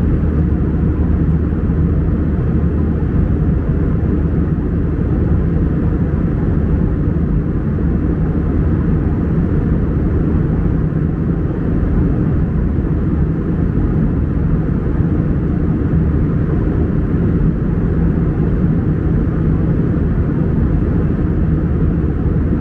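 Airplane cabin noise in flight: a steady low drone with a constant low hum over it.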